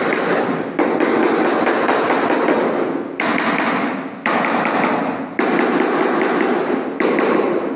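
A mallet beating on a large ceramic floor tile to bed it into the adhesive. The taps are rapid and loud and come in several runs, with short breaks between them.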